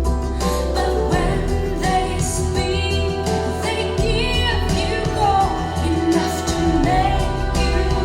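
Recorded song played back through Focal Sopra 3 floorstanding loudspeakers driven by a Naim amplifier and picked up by room microphones: a slow track with a steady deep bass line, melodic instruments and singing.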